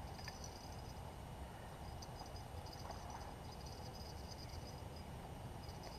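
Riverbank ambience: a steady low rumble with faint, high-pitched chirping that comes and goes.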